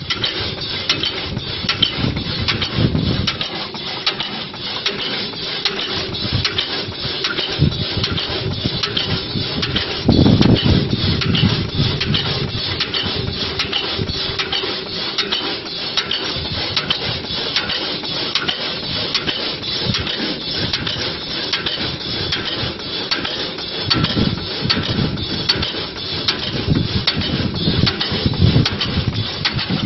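Wood wool machine running, shaving wood into excelsior strands with a steady, rapid, repeated clatter, and heavier knocks about a third of the way in and again near the end.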